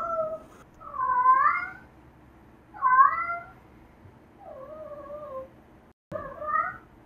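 Domestic cat meowing about five times, one call every second or two, the one near the middle softer than the rest.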